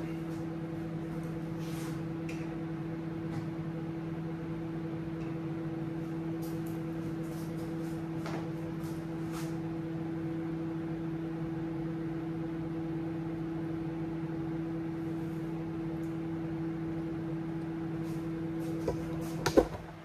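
Kenwood microwave oven running while it cooks, a steady hum with a few faint clicks. A sharp knock comes just before the end, and the hum falls away after it.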